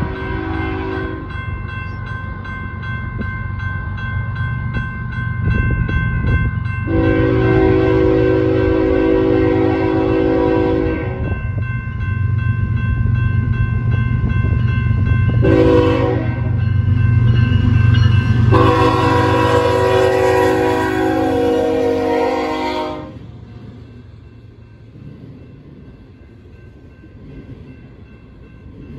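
BNSF freight locomotive's multi-chime air horn sounding the grade-crossing signal over the steady low rumble of its diesel engine as it approaches: the tail of one blast, then a long blast, a short one and a final long one. After that, the quieter rolling clatter of double-stack container well cars passing.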